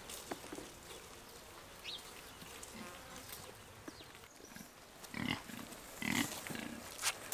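Pigs grunting: three short, low grunts about a second apart in the second half.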